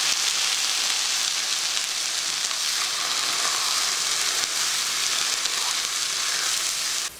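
Crushed tomatoes and browned onions sizzling steadily in hot sesame oil in a frying pan, stirred with a spatula. The hiss cuts off abruptly at the very end.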